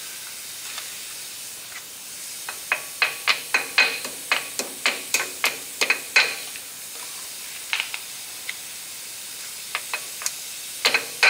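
Hammer tapping on the cotter pin at a front wheel hub's spindle: a quick run of sharp, slightly ringing metal taps, about four a second for some four seconds, then a few single taps.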